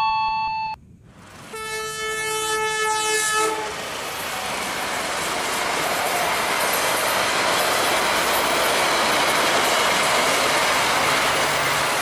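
Toy KAI CC 206 locomotive's electronic horn sounding a chord-like blast for about two seconds, after a brief pause, then a steady rushing run sound as the toy train moves along its plastic track. A held electronic tone stops under a second in.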